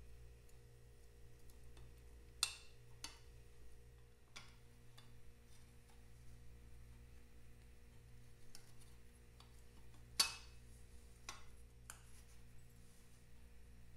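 Sparse metallic clicks and clinks as a chrome exhaust header pipe and its finned exhaust nut are worked by hand onto a Vincent V-twin cylinder head, the two sharpest about two and a half and ten seconds in. A low steady hum runs underneath.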